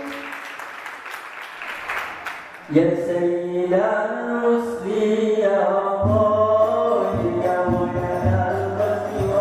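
A group's sung chord breaks off into a brief rush of noise. About three seconds in, a lead singer starts a solo line of sholawat through the stage microphone, with long, ornamented held notes. About halfway through, a low drone begins coming and going beneath it.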